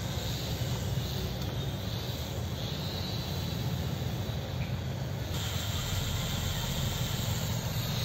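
Small electric RC helicopter in flight, its motor and rotor giving a thin high whine that dips in the middle and comes back stronger after about five seconds, over a steady low rumble.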